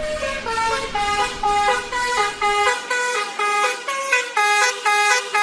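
A tune played on car-horn-like notes, stepping up and down about two to three notes a second, over a low engine rumble that drops away about halfway through. It is the horn-melody intro of a pop track.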